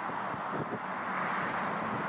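Jet engines of a Qatar Airways Boeing 787 at high power as the airliner rolls along the runway, a steady roar that grows slightly louder, mixed with wind on the microphone.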